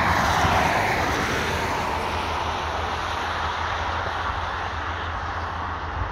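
Motorway traffic: a car's tyre noise on the wet carriageway fading as it drives away, over a steady low rumble of more distant traffic.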